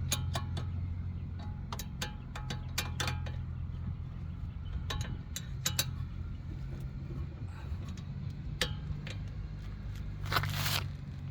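Irregular metallic clicks and clinks of hand tools working on car brake parts, with a longer scrape near the end, over a steady low hum.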